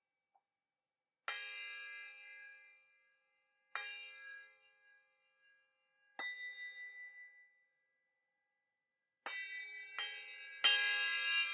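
A pair of small brass hand cymbals struck together, six times: three single strikes about two and a half seconds apart, each left to ring out, then three in quicker succession near the end, the last the loudest. Each strike gives a bright, many-toned metallic ring that fades over a second or two.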